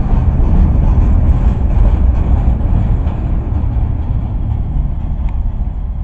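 Freight train wagons rolling past close by: a heavy, steady low rumble of steel wheels on rail that eases off a little near the end as the last wagons go by.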